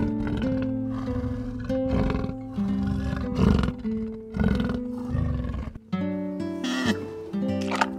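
A big cat roars and growls about four times, low rasping calls spaced a second or so apart over background music with a plucked melody. The roars stop about six seconds in, and only the music carries on.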